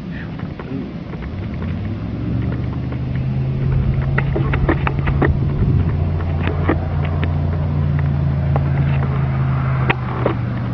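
A vehicle engine running steadily with a low, even hum that grows louder over the first couple of seconds, with scattered light clicks over it.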